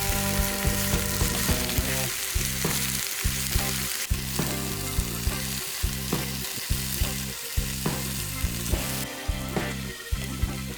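Vegetables sizzling as they are stir-fried in a frying pan, with a steady hiss. A utensil clicks and scrapes against the pan about twice a second as they are tossed.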